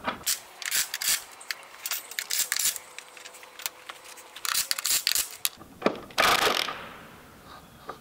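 Irregular metallic clicking and clinking from hand tools and carriage hardware being handled, in quick clusters, then a short burst of hiss about six seconds in.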